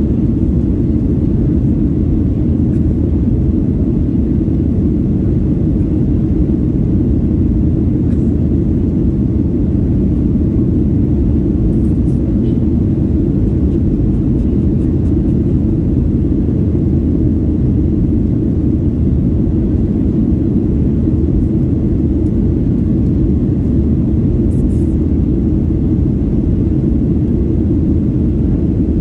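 Steady low rumble of jet airliner cabin noise in flight, heard from a window seat, unchanging throughout.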